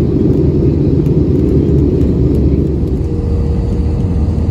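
Airbus A320 cabin noise on descent to landing: the steady low roar of the jet engines and airflow, heard from a window seat over the wing. A steady hum joins the roar about three seconds in.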